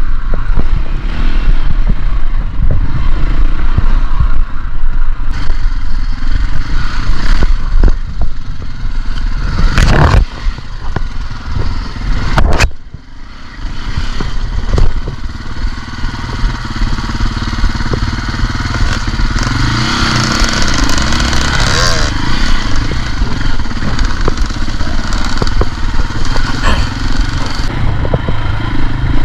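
KTM dirt bike engine running and revving as it is ridden off-road, its revs rising and falling. Clatter and knocks from the bike over rough ground, with two sharp knocks about ten and twelve and a half seconds in, followed by a brief dip in engine level.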